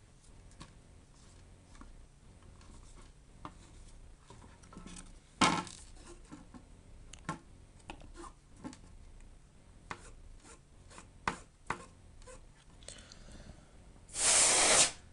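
Small clicks and taps of tools and parts being handled while taking a laptop apart, with a louder knock about five seconds in and a short, loud rubbing or scraping noise near the end.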